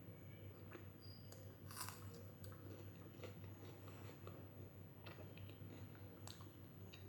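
A person chewing food with faint scattered mouth clicks and small crunches, the loudest about two seconds in.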